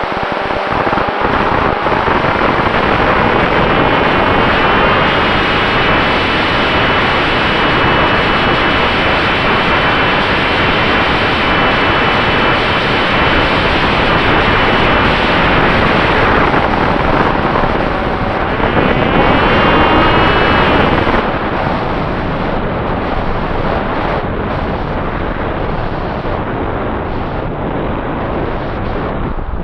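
Loud wind rushing over the microphone of an FX-61 flying-wing model plane, with the whine of its electric pusher motor and propeller rising and falling in pitch underneath. The noise eases a little about two-thirds through.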